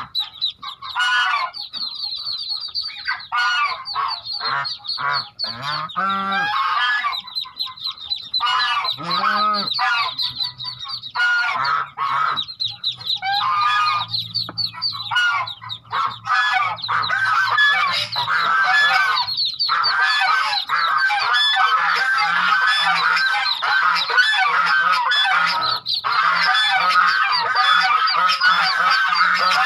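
A brood of newly hatched Muscovy ducklings peeping continuously, many rapid high calls overlapping, the chorus growing denser in the second half. A couple of lower, drawn-out calls sound about six and nine seconds in.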